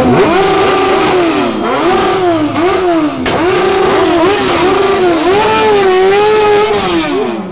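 Sport motorcycle engine revving hard again and again during a smoky burnout: it climbs, holds high revs for up to a second or more, drops back and climbs again, falling away near the end.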